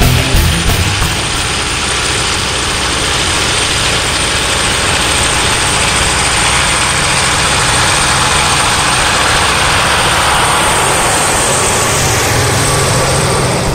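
Diesel engine of a loaded Peterbilt log truck running as the truck drives slowly toward the listener on a dirt road and rolls past. It gets a little louder as the truck comes close.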